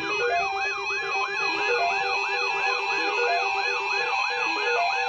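Electronic alert siren: a synthetic tone sweeping up and down about three times a second over a stepped, beeping electronic tune.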